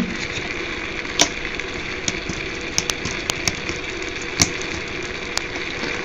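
Steady background hiss and hum with a handful of short faint clicks scattered through it, from jumper wires being handled on the breadboard.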